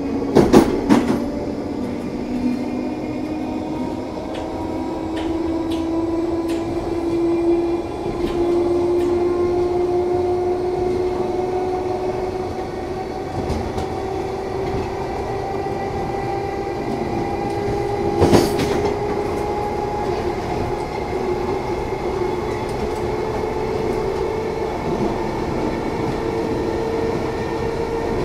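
London Underground 1972 Stock car (car 3262) running, heard from inside the carriage: a steady running noise with a whine that rises slowly in pitch, and wheel-on-rail clatter. Two sharp clacks stand out, about half a second in and again about eighteen seconds in.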